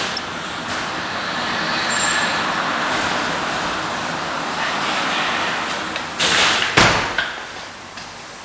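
A steady hiss of compressed air lasting about six seconds, with a sharp knock at the start and a few metal clanks near the end.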